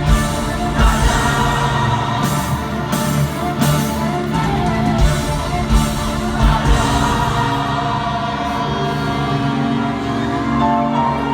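Live rock band playing with singing, from drums and sustained chords. Heavy drum and cymbal hits punctuate the first half, then give way to held chords and voices.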